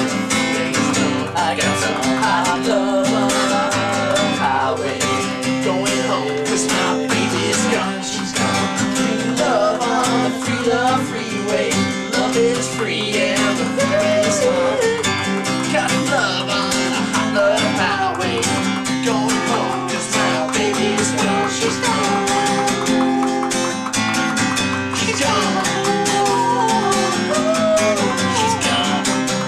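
Acoustic guitar strummed steadily in a song, with voices singing over it.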